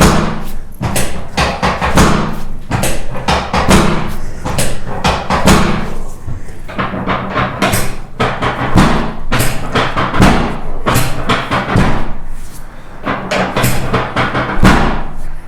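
Music with a busy, driving percussion beat over a steady bass line.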